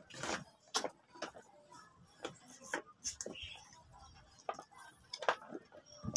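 Irregular short clicks and crunches, roughly two a second: children eating and handling snack food at a table.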